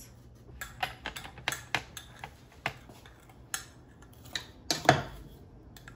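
Scattered sharp kitchen clicks and knocks: a knife striking a plastic cutting board as sweet potatoes are sliced, and a metal spoon tapping against a glass measuring cup while sugar is spooned over them, the loudest knock about five seconds in.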